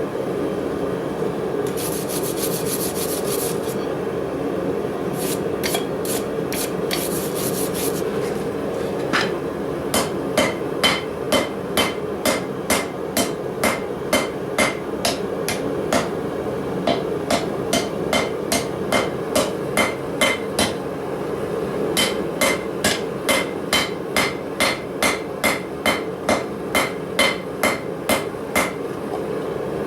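Hand hammer striking steel on an anvil while forging blacksmith tongs: a regular run of sharp blows, about two a second, starting around nine seconds in over a steady background hum. Before the hammering begins there are two short hissy, scraping passages.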